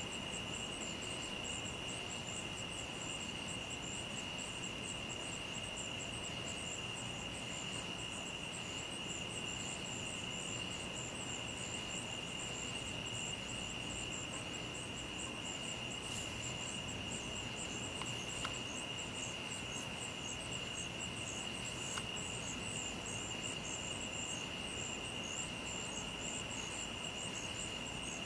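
Night insect chorus of crickets: a steady high-pitched trill without a break, with a faster pulsing, even higher chirring over it. Two faint ticks come in the second half.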